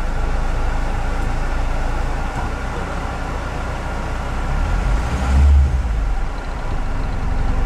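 LuAZ off-road vehicle's engine running steadily, heard from inside the cabin, with a louder low rumble for about a second around five seconds in.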